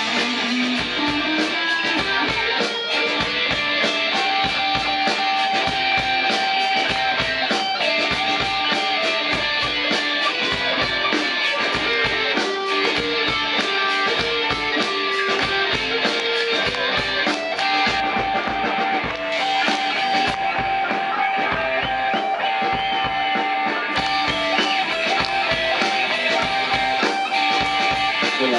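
Rock band playing live through an instrumental passage: electric guitar carries a line of long held notes over a steady drum-kit beat.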